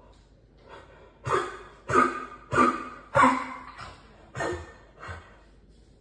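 Dog coughing: a run of about six harsh hacks, roughly two a second, starting about a second in and loudest in the middle. It is the cough of a dog with congestive heart failure.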